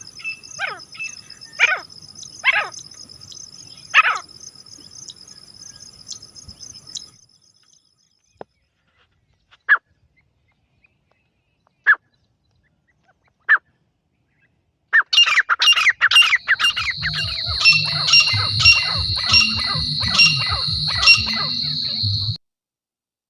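Grey francolin calls: short, sharp, repeated notes. A first run of calls is followed by a near-silent stretch with only a few isolated notes, then a dense, loud run of calls over a steady high whine that cuts off abruptly near the end.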